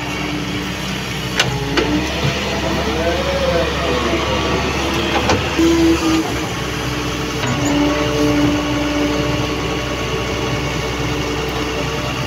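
Heavy diesel engine running steadily, with a few sharp knocks and a brief whine that rises and falls.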